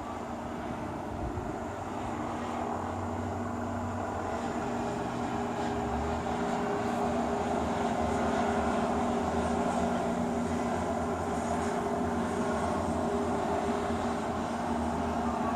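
A motor running steadily, a hum with a couple of held tones over a rushing noise, slowly growing louder.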